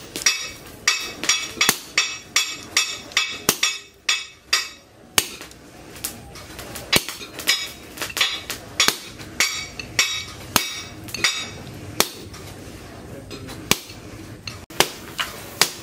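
Hammer blows on a red-hot leaf-spring blank over a steel post anvil, about two or three strikes a second. The strikes ring brightly for the first few seconds, then come duller and more unevenly spaced.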